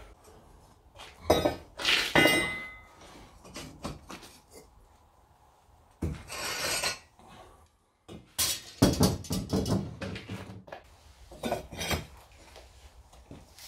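Irregular metal clanks and clinks of foundry tools being handled on firebricks: a cast iron skillet set aside and steel lifting tongs closing on a graphite crucible. One knock about two seconds in rings briefly, and there is a scrape around six seconds and a run of clatters later on.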